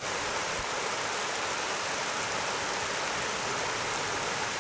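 Canal spill weir overflowing: a steady rush of water pouring over the edge of the pound into its grated drain.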